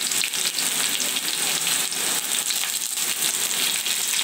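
Hot oil sizzling and spattering in a stainless-steel kadhai as torn curry leaves are dropped into a tempering of mustard seeds, urad dal and green chillies: a dense, steady crackle of many small pops.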